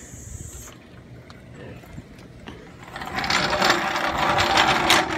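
Rapid mechanical clicking and rattling from the jack as the car is let down, starting about three seconds in and lasting about two seconds.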